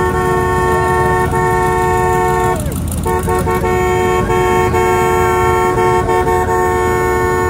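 A vehicle horn sounding a steady chord in two long blasts, the first about three seconds, then a brief break and a second of about four and a half seconds, over the low rumble of engines on the street.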